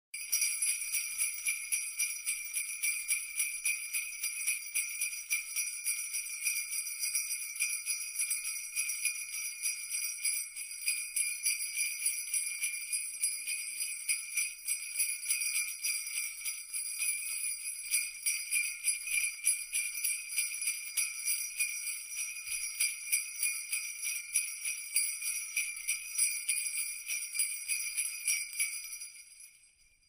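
A cluster of jingle bells shaken continuously, a fast, even, high metallic jingle that fades out in the last second or two.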